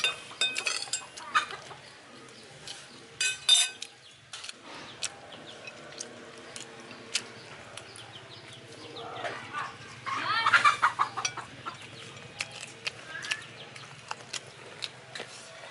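Chickens clucking, with a louder run of clucks about ten seconds in, over scattered light clicks and knocks.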